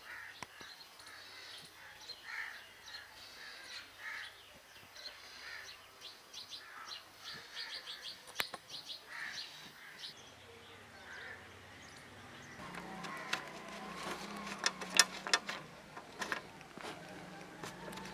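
Birds chirping and calling in short repeated notes through the first half. About two-thirds in, a low steady hum sets in with a run of sharp clicks and knocks, the loudest near three-quarters of the way, as the rusty saw is handled.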